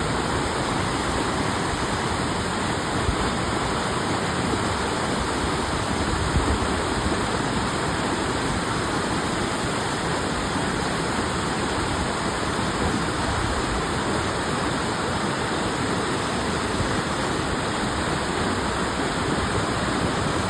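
Steady rushing water, an even unbroken wash like a waterfall or fast stream.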